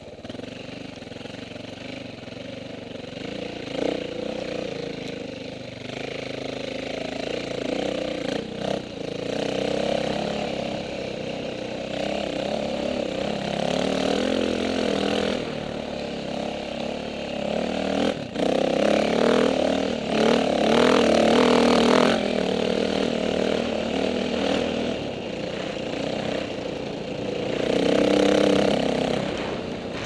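KTM 450 dirt bike's single-cylinder four-stroke engine running under throttle, revving up and falling back again and again.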